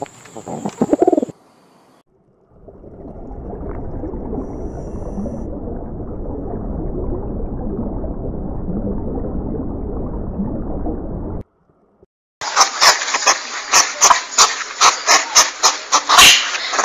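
A common wood pigeon cooing for about a second, then stopping. Next comes a steady low underwater rumble of moving water for about nine seconds, which cuts off suddenly. After a short gap, a European hedgehog snuffles as it forages, with rapid uneven clicks and sniffs, several a second.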